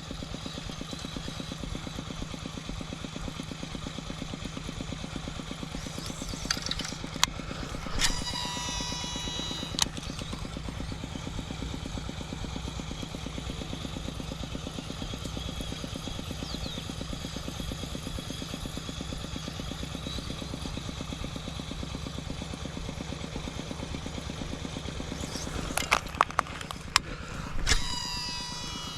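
A small engine running steadily at an even speed, with short bursts of clicking and high whirring about eight seconds in and again near the end.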